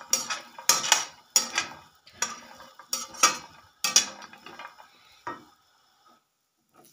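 Metal slotted spatula scraping and clattering in a stainless steel frying pan, stirring mixed nuts (cashews, almonds, pistachios) that are roasting in a little oil. The strokes come in a quick, uneven rhythm of about one every two-thirds of a second and stop about five seconds in.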